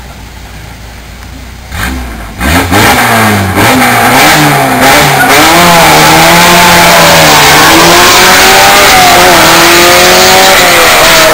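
Open-cockpit sports-prototype race car's engine coming in very loud about two seconds in and revved hard, its pitch rising and falling several times, then held at high revs as the car pulls away up the hill.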